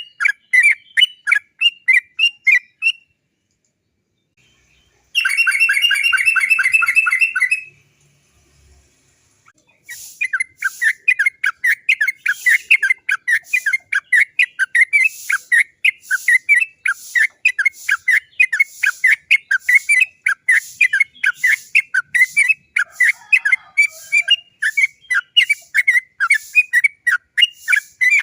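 Sooty-headed bulbul (trucukan) singing its rapid 'cok cok cok' notes: a run of quick repeated chirps, a brief pause, a fast rolling trill about five seconds in, then after another pause a long unbroken series of rapid chirps.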